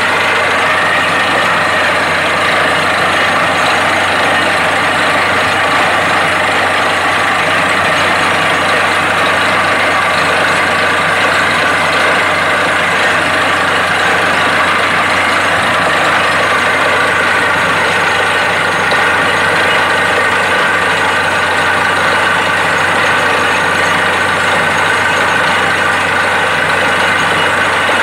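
Truck-mounted borewell drilling rig running steadily, its engine and air compressor driving the drill while water and rock cuttings are blown up out of the bore. A loud, even machine din with a steady high whine running through it.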